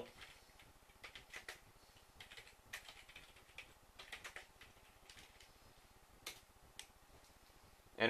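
Faint, irregular keystrokes on a computer keyboard as a short terminal command is typed.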